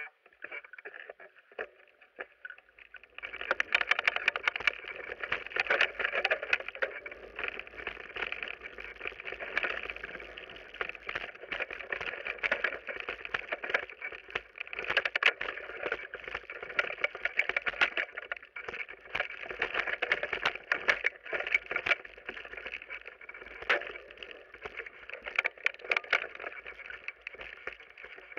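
Mountain bike riding fast down a rough forest trail: a constant rattle and clatter of the bike and tyres over roots and rocks, with dense knocks and rushing noise, starting about three seconds in.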